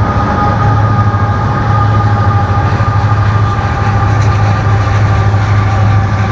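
Union Pacific train rolling past, a loud steady rumble with two steady high-pitched tones above it.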